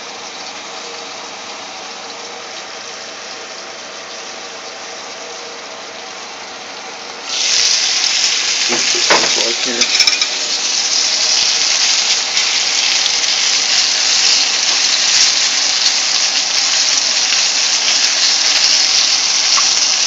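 Floured squirrel pieces pan-frying in oil in a covered skillet: a muffled sizzle under a steady hum. About seven seconds in, the lid comes off with a few metal clinks, and the sizzle turns loud and bright and stays even.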